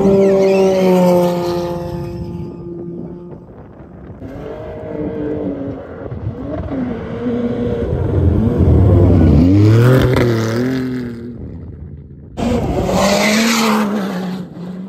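Off-road rally car engine revving hard as it climbs a soft sand dune, the pitch rising and falling with the throttle. About twelve seconds in it turns loud and close, holding a steadier note.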